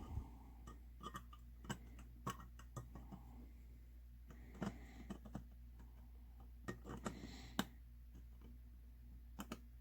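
Scattered light clicks and taps, a dozen or so at irregular intervals, from a recessed light's trim ring and housing being handled. A faint low hum runs underneath.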